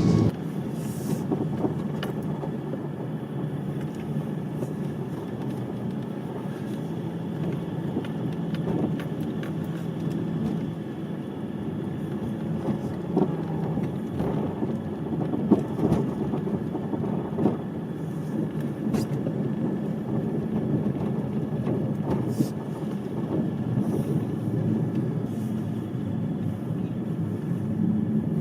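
Steady low rumble of a car on the road, with a few faint clicks.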